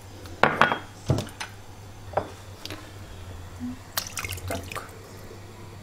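Saffron infusion dripping from a metal mesh strainer into a ceramic mug, with a few sharp knocks of the strainer against the mug, the loudest about half a second and a second in. About four seconds in, the infusion is poured from the mug into a pot of stew with a short run of small clicks and splashes.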